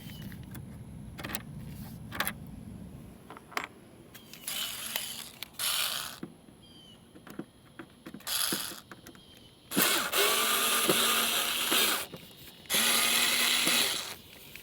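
A tool backing out the taillight's two inner screws in several bursts of whirring and clicking, the longest and loudest about two seconds each in the second half.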